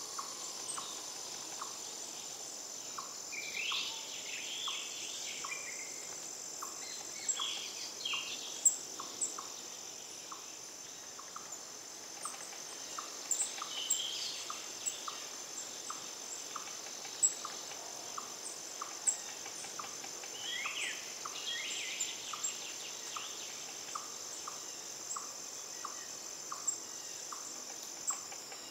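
Tropical forest ambience: a steady high-pitched insect drone with a regular ticking about twice a second, and scattered short chirping calls from birds or small animals, a few of them sharp.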